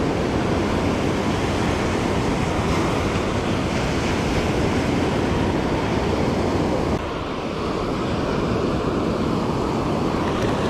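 Ocean surf breaking and washing up the beach, with wind buffeting the microphone: a steady rushing noise that eases slightly about seven seconds in.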